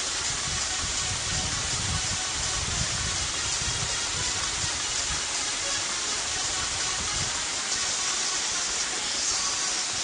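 Steady rushing of water from a partly frozen waterfall into a valley pool, with an uneven low rumble underneath that dies away about seven seconds in.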